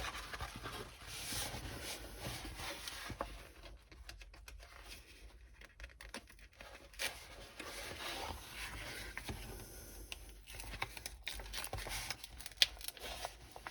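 Rustling and crinkling of a rolled diamond-painting canvas being unrolled by hand, its protective cover paper lifting off the adhesive, with scattered small clicks and taps.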